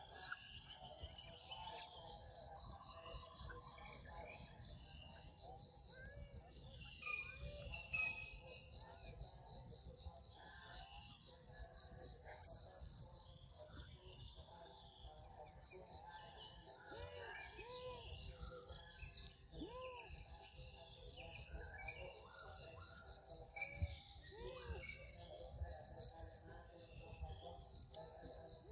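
Insects chirring: a high, fast, even pulsing buzz that breaks off briefly every second or two. Faint short rising-and-falling calls sound lower down in the second half.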